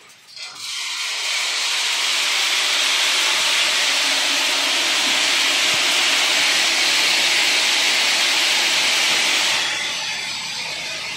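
Soybeans streaming down the flights of a spiral seed grader, a steady rushing hiss that starts abruptly about half a second in and drops away near the end.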